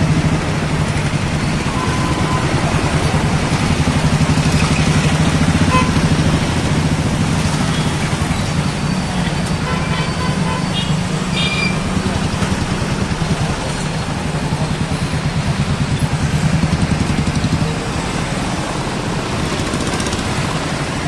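Bus engine running steadily, heard from inside the bus as it creeps through congested traffic, mixed with the engines of the auto-rickshaws and motorcycles around it. A few short high beeps come about ten to eleven seconds in.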